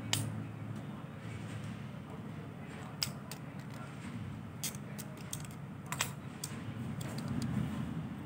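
Light plastic clicks and taps as the parts of a small plastic gun are handled and fitted together and prodded with a slim pointed tool: a sharp click at the start, then scattered small clicks, over a steady low hum.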